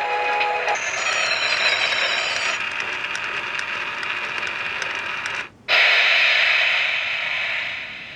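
Toy train coin bank's small motor and gears whirring steadily as the miniature train runs, after the last notes of its electronic melody and a brief high warbling tone. The whir cuts out for a moment about five and a half seconds in, comes back louder, then fades away near the end.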